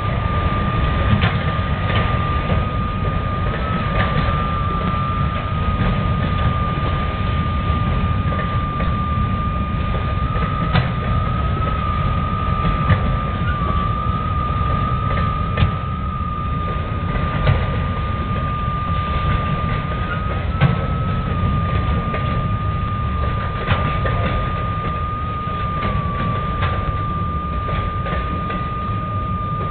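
CSX auto-rack freight train rolling past, a steady low rumble of the cars with a sharp knock every second or two from the wheels. A high steady squeal runs through it, wavering slightly in pitch.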